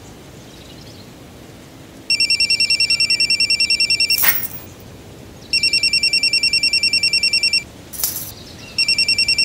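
Telephone ringing with a fast electronic trill. There are two full rings of about two seconds each, with a gap of a little over a second between them, and a third ring starting near the end. A brief sharp noise falls in each gap.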